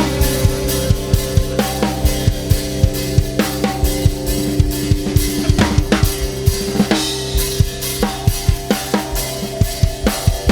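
Live rock band playing an instrumental passage led by the drum kit: a steady beat of kick and snare hits, with held guitar and bass notes ringing underneath.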